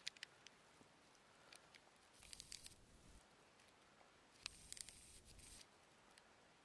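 Near silence with a few faint clicks, broken twice by brief bouts of rustling and crackling, about two seconds in and again from about four and a half to five and a half seconds.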